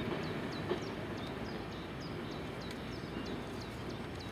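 Green heritage diesel railcar running away, a low steady rumble. A bird repeats a short high falling chirp about three times a second over it.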